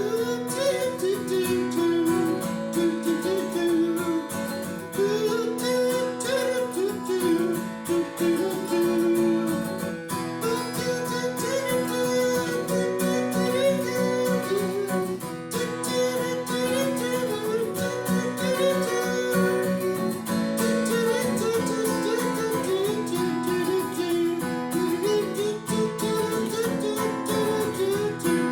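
Acoustic guitar playing an instrumental break in a slow blues song, steady chords with a wavering, bending melody line over them.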